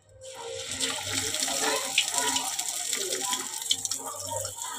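Breadcrumb-coated potato patties deep-frying in hot oil in a kadhai: a crackling sizzle that starts just after the beginning, as the first patty goes into the oil, and keeps up.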